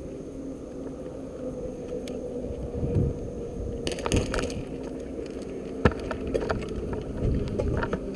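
Sharp clicks and cracks over a steady low rumble: a quick cluster of clicks about four seconds in, one loud crack a little before six seconds, then scattered lighter ticks.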